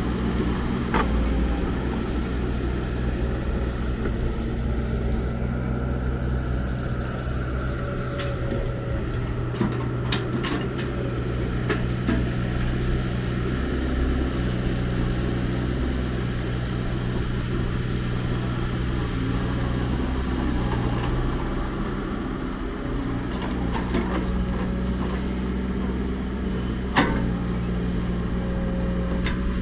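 Diesel engine of heavy construction machinery running steadily, its pitch shifting now and then with load, with a few sharp knocks, the loudest near the end.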